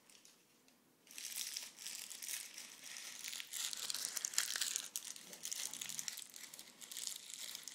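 Crinkling and rustling, like something crumpled being handled, starting about a second in and going on in uneven spurts.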